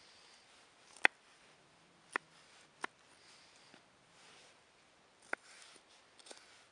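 Kitchen knife chopping green pepper on a wooden cutting board: a handful of sharp knocks as the blade hits the wood, irregularly spaced, the loudest about a second in.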